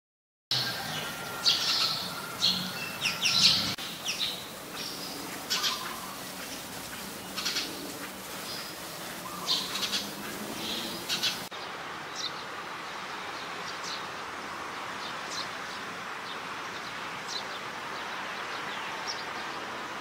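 House sparrows chirping: clusters of short, sharp chirps for about the first eleven seconds, then, after a sudden change, fainter scattered chirps over a steady hiss.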